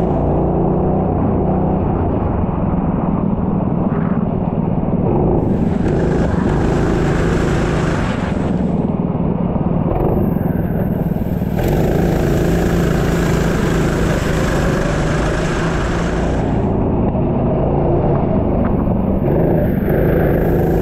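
A racing engine running continuously at speed, with a high rushing hiss that comes and goes several times.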